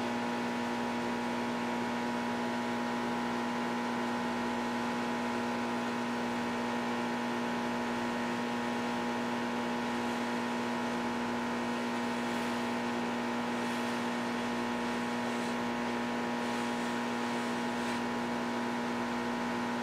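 Steady electrical mains hum: a low drone with several fixed higher tones that does not change. A few faint ticks come in the second half.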